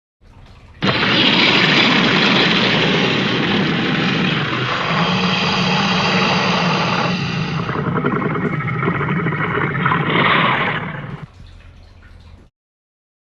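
Dinosaur roar sound effect: one long, rough roar of about ten seconds that starts suddenly about a second in and tails off near the end.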